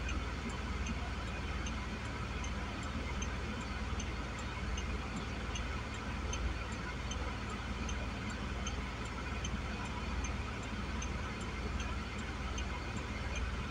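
Steady low rumble of a long freight train rolling slowly past, with a light, even ticking about twice a second.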